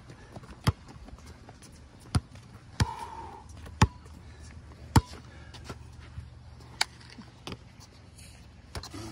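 A basketball bouncing on a concrete court during dribbling: about seven sharp, unevenly spaced bounces.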